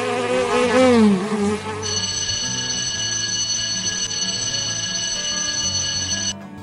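An insect buzzing with a wavering pitch for about two seconds, followed by a steady high ringing tone held for about four seconds that cuts off abruptly.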